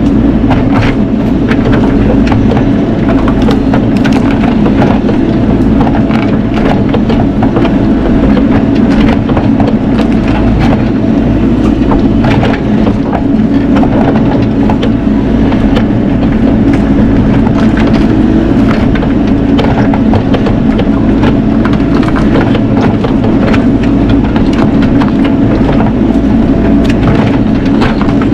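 Bobcat E42 mini excavator's diesel engine running steadily under load, with many sharp cracks and snaps of wood and branches as a large tree is pushed and dragged.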